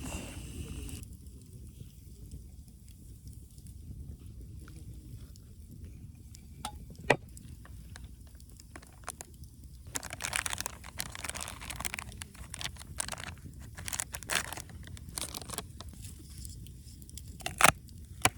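Wood campfire crackling, with irregular sharp pops and snaps that come in dense clusters and include two loud single cracks, over a low steady rumble.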